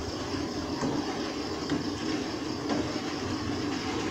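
Steady rushing noise of a pot of water heating on a gas stove, with a few faint taps of a wooden spoon stirring the pot as palm sugar dissolves.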